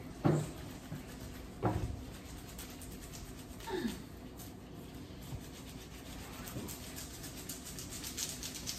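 Rough pineapple rind and spiky leaves rubbing and scraping as the whole pineapple is twisted by hand against a counter top. There are two short sharp sounds in the first two seconds, and the scraping grows busier near the end.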